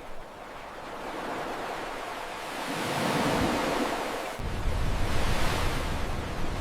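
Ocean waves and wind rushing, swelling about three seconds in, with a deep low rumble coming in suddenly a little past the middle and holding.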